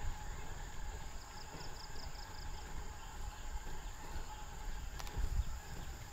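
Steady insect buzzing over a low rumble, with a short run of rapid high chirps about a second in and a single sharp click near the end.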